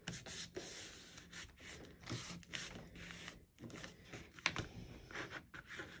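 Hands rubbing and smoothing a sheet of thick 140 lb watercolor paper down onto a canvas panel: faint, irregular rubbing strokes, with one sharper scrape about four and a half seconds in.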